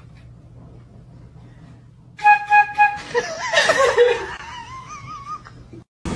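Concert flute playing three short, loud notes on the same pitch, then a woman bursting into laughter with high, wavering squeals.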